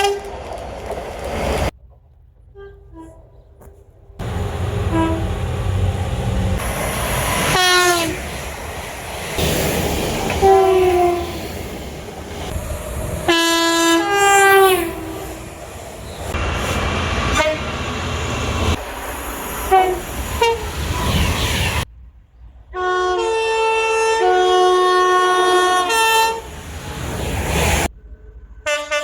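Train horns sounding in a series of separate clips, each a chord of several tones, some blasts dropping in pitch as the train passes, over the rumble of trains running on the rails. The clips change with abrupt cuts, the longest horn blasts coming near the end.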